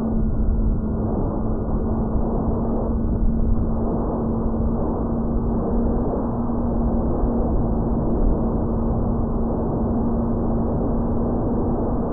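Onboard sound of an RC foamboard plane's motor and propeller in flight: a steady hum of nearly constant pitch over heavy wind rush on the plane-mounted microphone.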